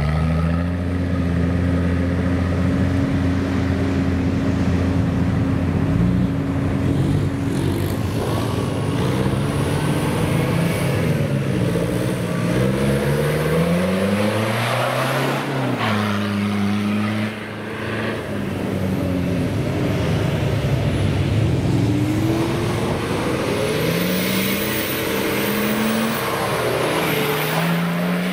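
Off-road 4x4 engines driving on a dirt track, the revs rising and falling again and again as they accelerate and ease off, with a brief lull a little past halfway.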